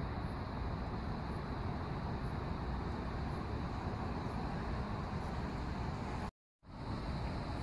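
Steady low rumble with a hiss above it and a faint, steady high tone, cutting out for a moment about six seconds in.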